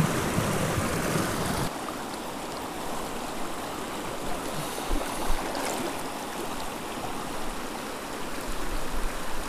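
A small mountain creek rushing over boulders: a steady sound of flowing water. About two seconds in it changes abruptly to a slightly quieter, thinner rush.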